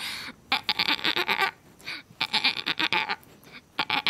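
A person imitating a dolphin with the mouth: three bursts of rapid clicking chatter, each up to about a second long, with short pauses between.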